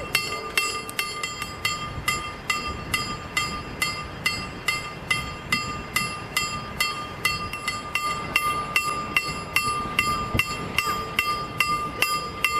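Level-crossing warning bell ringing steadily at about two strikes a second, each strike ringing on: the crossing signals are working, warning that a train is coming.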